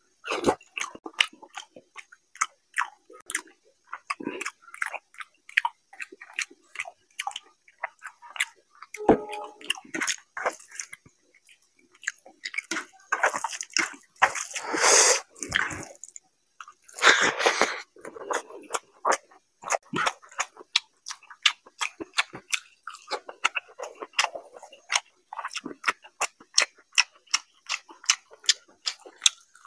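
A person eating rice and fish curry by hand, close to the microphone: chewing with many sharp mouth clicks and lip-smacks, and a few seconds of fingers mixing rice and curry on the plate about halfway through.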